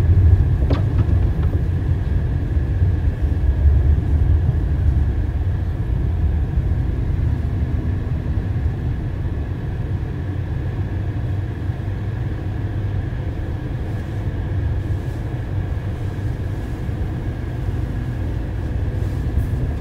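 Steady low rumble of tyre and road noise from a Renault Zoe electric car driving on a snow-covered road, heard from inside the cabin, with a faint steady high whine throughout.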